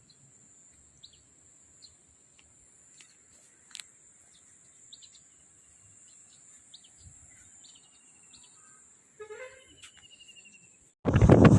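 Outdoor countryside ambience: a steady high-pitched insect drone with scattered short bird chirps and, about nine seconds in, a bird's quick run of notes stepping down in pitch. Near the end loud wind buffeting on the microphone suddenly takes over.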